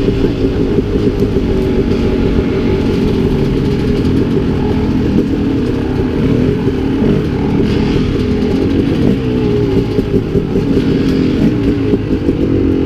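Dirt bike engine running while being ridden, its pitch rising and falling as the throttle is opened and rolled off.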